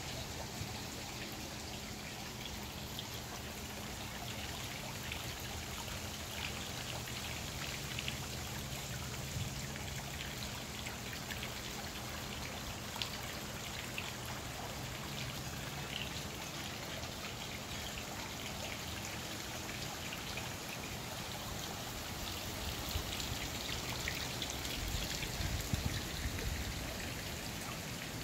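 Steady rain falling on garden foliage: an even hiss scattered with many small, separate drop ticks.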